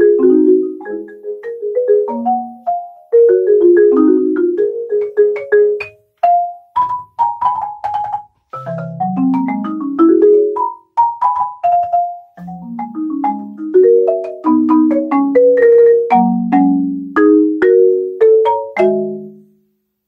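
Solo marimba playing quick runs of mallet-struck notes across its low and high ranges, with two brief pauses. The last notes ring and die away shortly before the end.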